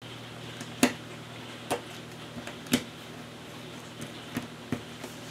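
Cardboard jigsaw puzzle pieces being handled and set down on a table: irregular sharp clicks and taps, two louder ones about a second in and near the middle, over a steady low background hum.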